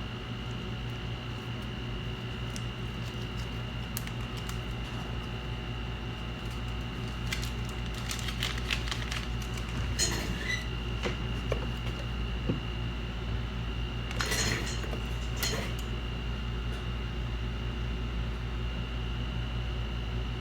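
A steady fan-like hum with a thin, high, steady whine, broken by light clicks and scrapes between about 7 and 16 seconds in.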